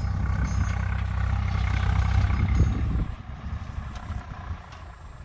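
Tractor engine running under load while ploughing, a loud low rumble that falls away sharply about three seconds in.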